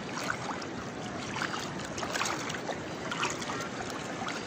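Seawater splashing and lapping around people wading and swimming, a steady wash of many small splashes.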